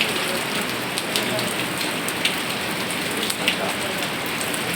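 Heavy rain pouring steadily onto surfaces, with many sharp drop impacts spattering close by.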